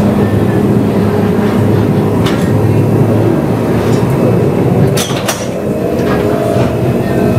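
Gomaco replica Birney streetcar running along its rails, heard from the operator's cab: a steady low rumble of motors and wheels, with two sharp clicks about five seconds in.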